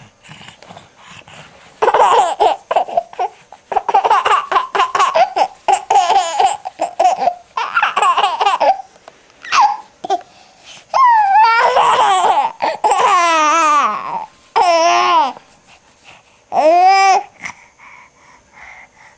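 A six-month-old baby laughing in several high-pitched fits of giggles and squeals, with short babbles between them and one last short squeal near the end.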